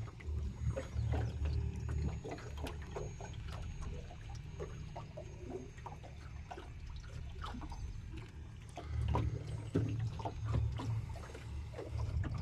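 Water splashing and trickling around a small wooden rowboat being rowed with oars: many small, irregular splashes and drips. Wind buffets the microphone with a low rumble that comes and goes, strongest at the start and from about nine seconds in.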